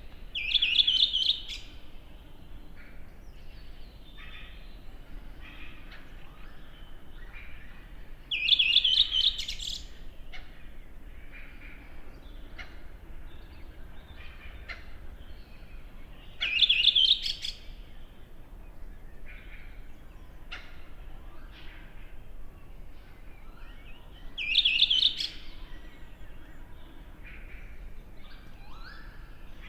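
A songbird repeats the same short, high, trilling song phrase about every eight seconds, four times. Quieter calls and song from other birds fill the gaps: a spring dawn chorus.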